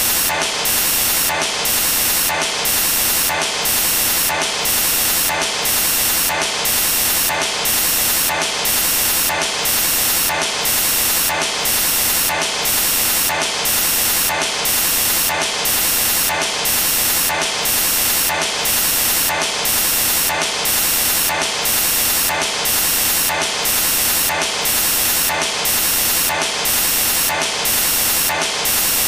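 Loud, steady static hiss with a slight regular pulse about every three-quarters of a second: a digital noise glitch in the audio, not a sound of the gym.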